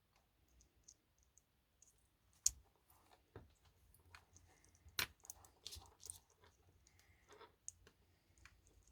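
Faint, scattered small clicks and taps of fingers working small plastic parts and wires loose inside a model locomotive, with two sharper clicks about two and a half and five seconds in.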